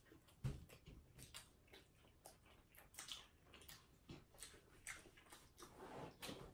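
Near silence with faint chewing of chicken nuggets: soft, irregular clicks and ticks of mouths at work, the sharpest about half a second in.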